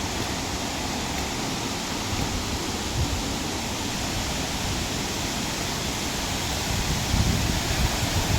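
Waterfall rushing steadily, with some low rumbling bumps near the end.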